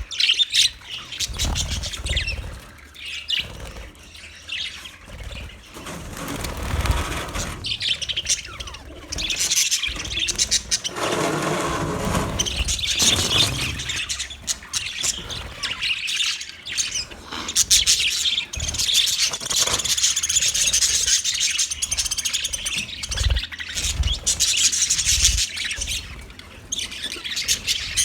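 Budgerigars chirping and warbling continuously, a dense run of fast high-pitched chatter with occasional squawks.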